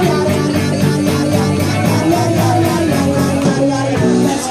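Live cover band playing a rock dance number, with a steady drum beat and a singer.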